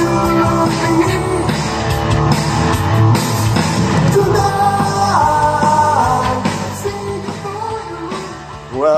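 Rock song with a singer playing through bookshelf loudspeakers driven by an Aiyima A07 MAX TPA3255 class-D amplifier; the music gets quieter over the last few seconds.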